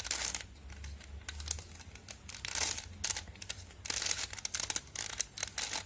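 Scattered plastic clicks and rustles of a Rubik's cube being handled and turned in the hands.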